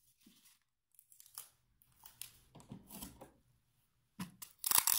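Clear sticky tape pulled off a handheld dispenser and torn off against its cutter, in a few scattered rips and rustles, the loudest just before the end.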